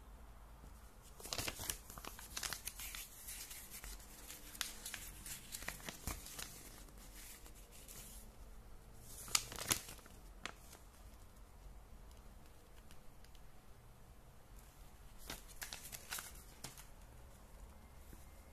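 Paper instruction manual being handled and its pages turned: crisp paper rustling and crinkling in four short flurries, the loudest about nine to ten seconds in.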